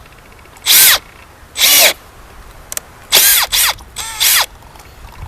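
Power drill run in about five short trigger bursts, each dropping in pitch, while drilling a hole through a glass mirror.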